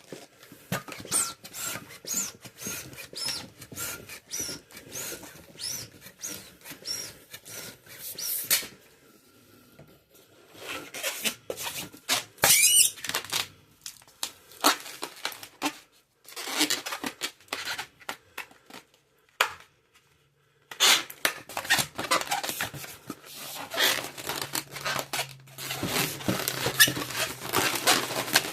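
Long latex twisting balloons being handled, rubbed and twisted close up, giving repeated squeaks, creaks and rubbery crackles with a few brief pauses.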